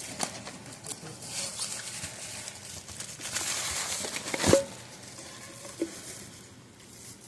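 Fireworks being rummaged through by hand: wrappers crinkling and rustling and cardboard tubes knocking together, with one louder knock about four and a half seconds in.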